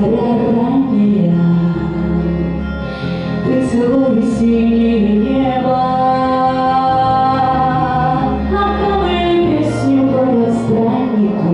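A woman singing a song over a backing track, with several long held notes in the middle and steady bass notes underneath.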